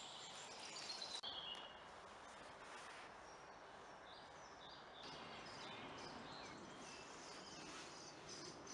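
Faint woodland ambience: a steady soft hiss with small birds chirping here and there.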